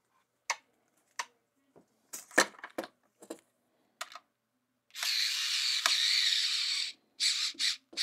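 Small clicks and taps of copper wires and a screwdriver at the screw terminals on the back of a smart light switch being wired. About five seconds in comes a steady hiss-like noise lasting about two seconds, then two shorter ones near the end.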